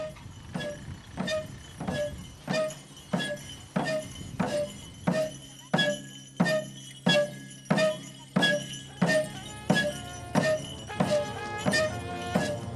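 Background music: a steady beat of struck, ringing notes, about three every two seconds, with busier melodic notes joining near the end.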